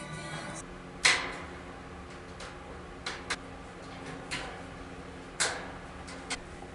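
Scattered knocks and clatters of household objects being handled and set down, about seven sharp hits, the loudest about a second in and near five and a half seconds in; music fades out at the very start.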